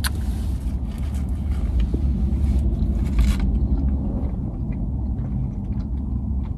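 Steady low rumble of a car idling, heard inside the cabin, with faint rustling and a few small clicks from eating; a light hiss cuts off suddenly about halfway through.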